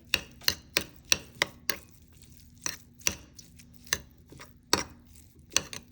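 Cutlery knocking against a dish in a string of sharp taps, quick at first, sparser in the middle and bunching again near the end, as eggs are cut up and eaten.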